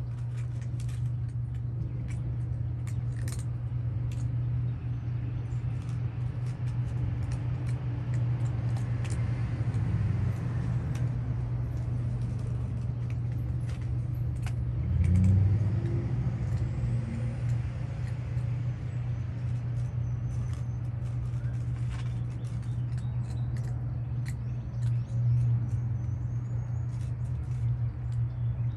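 A steady low mechanical hum, with many small sharp clicks of cats chewing their food over it; the hum swells briefly about halfway through.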